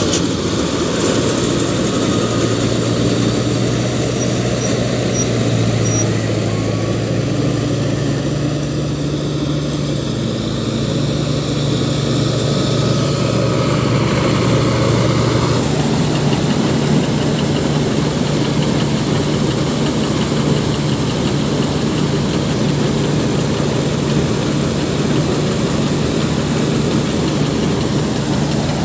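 Sonalika DI-60 RX tractor's diesel engine running steadily under load, powering a tractor-mounted combine harvester's cutting and threshing machinery. The engine note steps up slightly a few seconds in and changes about halfway through.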